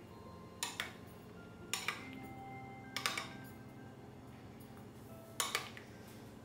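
Steel spoon clinking against a ceramic bowl while stirring oats porridge: four light clinks with a short ring, spaced a second or more apart.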